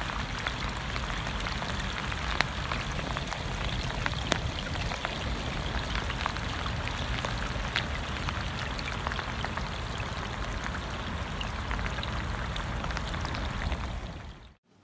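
Steady rain falling onto open water, with many small drop splashes patting the surface. It stops abruptly near the end.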